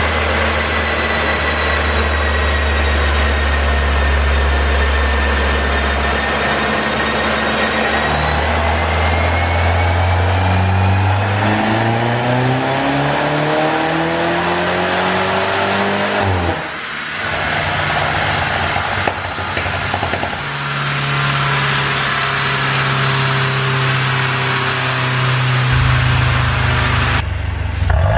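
Mercedes-Benz W205 C200's turbocharged four-cylinder engine on a chassis dyno, running steadily, then revving up in one long rising pull for about eight seconds before the throttle is closed suddenly and it drops back to a steady run.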